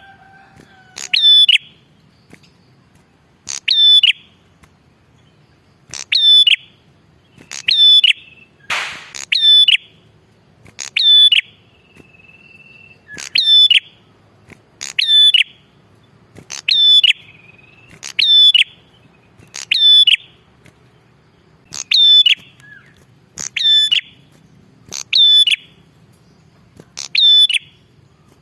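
Red-headed prenjak singing: a loud, sharp, looping note repeated every second or two, often doubled, with an occasional short steady whistle in between. A brief rustling noise about nine seconds in.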